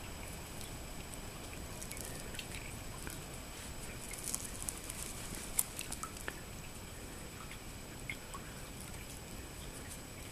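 A cat at play: faint, scattered light taps and scuffs, with a cluster of sharper clicks about halfway through.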